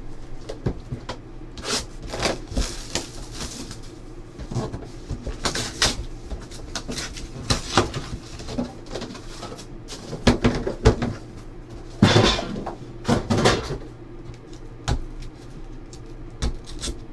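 Hands opening a trading-card hobby box: the cardboard lid slides off and the packaging and cards are handled, giving a string of rubbing, scraping and rustling sounds. The loudest scrapes come past the middle.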